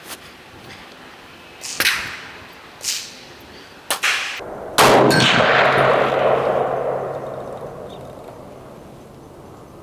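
AK-47 (Century Arms Model 1960, milled receiver) firing 7.62x39 rounds. Three sharp, short cracks come about a second apart, then a louder shot about five seconds in whose report rings out and fades over roughly three seconds.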